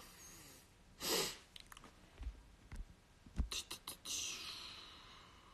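A person's breathing: a short sharp breath about a second in, and a longer breath out from about four seconds that fades away. In between, a few soft knocks and small clicks, as a phone held close to the microphone is handled.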